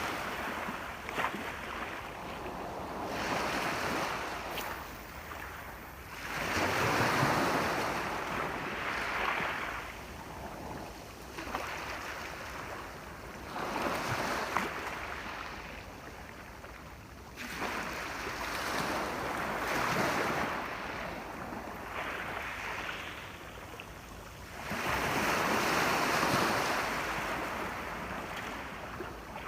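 Ocean waves washing onto a shore, the surf swelling and drawing back every few seconds.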